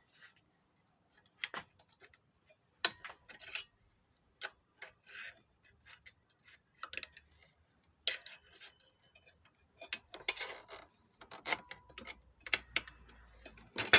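Heavy-duty stapler being reloaded and adjusted for size-15 staples: irregular sharp clicks and clatter of its metal parts, with short quiet gaps between.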